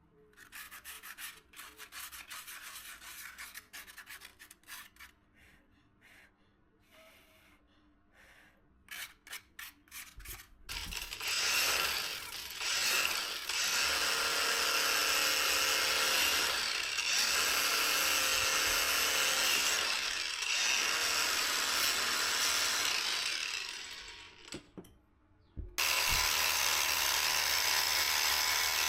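Irregular rubbing strokes of a hand tool on a workpiece, then about eleven seconds in a power tool starts running steadily, stops for about a second near the end and starts again.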